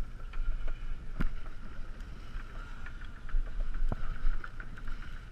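Wind buffeting the microphone over the running noise of a sportfishing boat at sea: a steady low rumble with a steady mid-pitched hum, and a few sharp clicks, the loudest about a second in and near four seconds.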